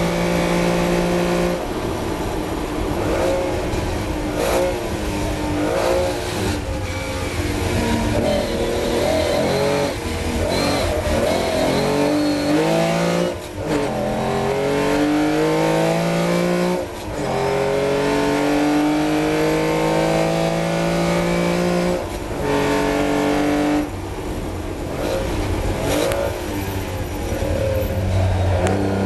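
Austin-Healey 3000's straight-six engine at racing revs, heard from the cockpit. A steady high note drops about two seconds in as the car brakes, with throttle-blipped downshifts. It then pulls hard up through the gears, rising in pitch, with short breaks at three upshifts, and lifts with more blips near the end.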